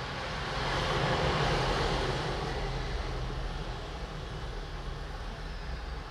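A passing road vehicle: a wash of traffic noise that builds about half a second in, peaks around one to two seconds, then slowly fades.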